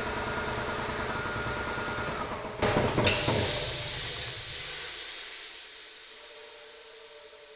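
Electric piston air compressor with a vertical tank running up to pressure, then shutting off at its pressure switch's 150 psi cut-out: about two and a half seconds in a sudden loud hiss of air being released starts, typical of the pressure switch's unloader valve, while the pump and motor run down. The hiss slowly fades.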